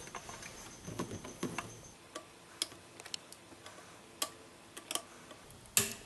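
Sparse, irregular light clicks and taps from handling a perfboard and small parts in a board holder, with a sharper click near the end.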